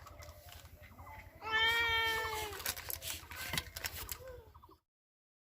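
A domestic cat gives one drawn-out meow about a second and a half in, lasting about a second and falling slightly in pitch. Scattered small clicks and a brief faint call follow before the sound cuts off.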